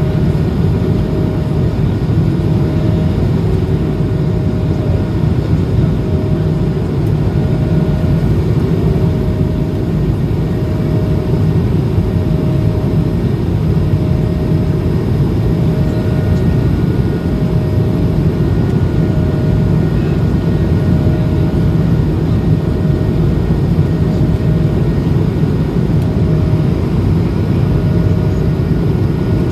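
Airbus A220-300 in flight, its Pratt & Whitney geared turbofans and the airflow making a loud, steady low drone. A faint humming tone pulses in and out about every second and a half.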